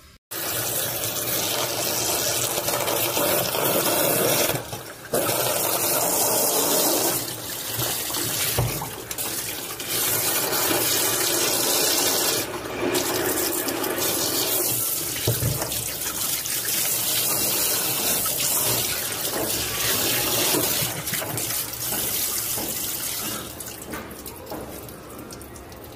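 Water from a hose pipe spraying and splashing onto the plastic floor of a top-loading washing machine's outer tub, rinsing out the dirt. The flow breaks off briefly about five seconds in and again about twelve seconds in, and it grows quieter near the end.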